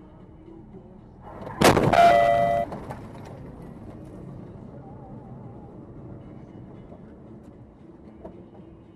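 A car collision heard from inside a dashcam car: one loud crash about one and a half seconds in, followed at once by a brief steady two-note tone. Steady road noise runs underneath.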